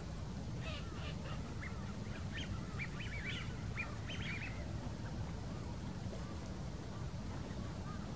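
A flock of waterbirds on the lake calling: a burst of many short, overlapping calls in the first half, then dying away. A steady low rumble runs underneath.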